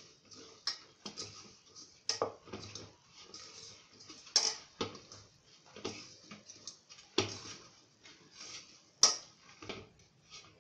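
Hand kneading crumbly rice-flour dough in a stainless steel bowl: irregular clinks and knocks against the steel, about one a second, with soft rubbing and crumbling between.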